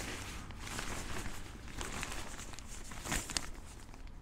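Rustling and crinkling of a bivi bag's tent fabric being spread out and handled, with a few sharp knocks about three seconds in.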